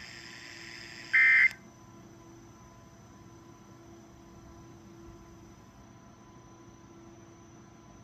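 A weather radio's broadcast ends with one short, loud burst of warbling digital data tones, typical of the SAME end-of-message code that closes an emergency alert. The radio's audio then cuts off suddenly, leaving a faint steady hum with a thin high whine.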